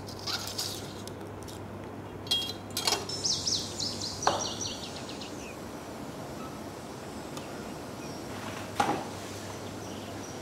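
A few light clicks and taps as hardened sugar-painting pieces and utensils are handled over a marble slab, over a steady low hum. About three seconds in there is a short run of quick, high, falling chirps.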